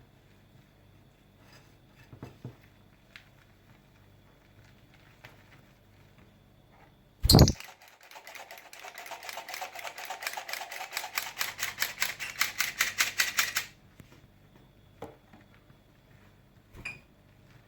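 A single loud knock, then a flour sifter worked in quick, even strokes, about eight to ten clicks a second, growing louder for about six seconds before stopping suddenly.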